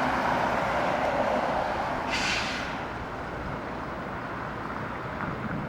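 Road traffic passing: a vehicle's noise fills the first couple of seconds, then a brief high hiss about two seconds in, after which it fades to a lower, steady traffic hum.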